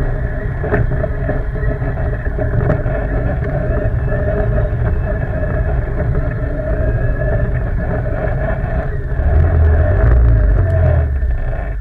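ATV quad engine running steadily under way, with a louder low rumble for about two seconds near the end.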